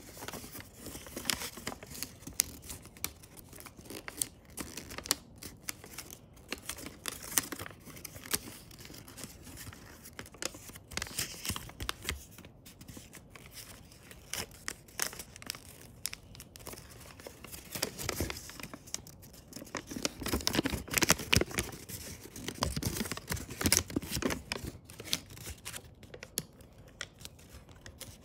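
Origami paper rustling and crinkling as hands fold and crease it, in short scratchy strokes that come thicker and louder about two-thirds of the way through.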